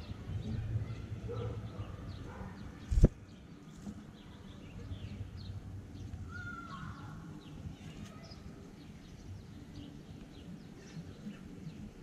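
Faint, short, high chirps of small birds at a nest, scattered throughout, with one sharp loud thump about three seconds in.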